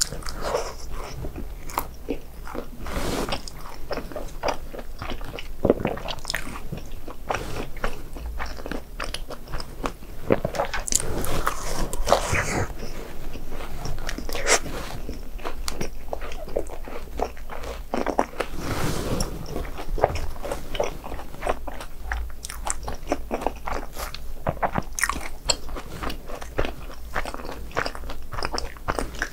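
Close-up biting and chewing of crunchy fried snacks, dense irregular crisp crunches throughout.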